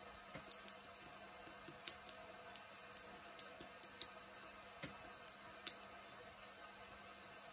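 Hands massaging the neck: faint, soft rubbing of skin with a scatter of sharp, irregular clicks, about one or two a second, over a steady low hum.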